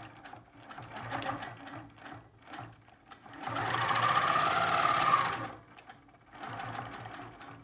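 Longarm quilting machine stitching in stops and starts as it is guided along a ruler, the needle running fast, with its loudest steady run lasting about two seconds midway.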